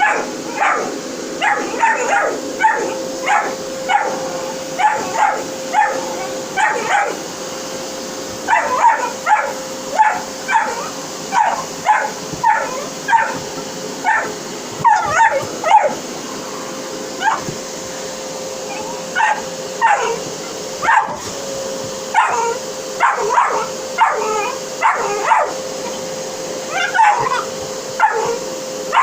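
A dog barking and yapping over and over, about one to two barks a second with a couple of short pauses, at a running vacuum cleaner whose steady hum and hiss continue underneath.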